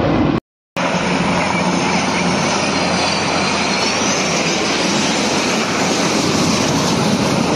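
Formation of military jets, including Sukhoi Su-30MKM fighters, flying over with a steady jet engine roar. A faint whine rises and falls in pitch about halfway through. There is a brief gap of total silence just after the start, at an edit cut.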